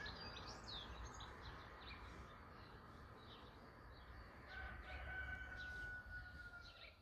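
Faint birds chirping outdoors over a low background rumble. About four and a half seconds in comes a single long, steady call lasting about two seconds.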